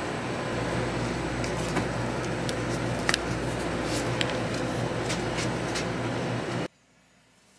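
Steady mechanical hum and hiss of a shop's background machinery, with a few light clicks and taps. The sound cuts off suddenly near the end, leaving a much quieter background.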